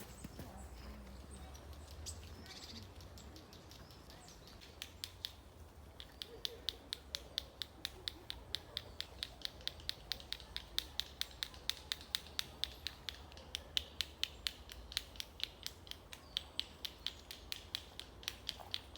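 A squirrel gnawing at a walnut shell: a run of sharp, even clicks, about three to four a second, that sets in around five or six seconds in and keeps going.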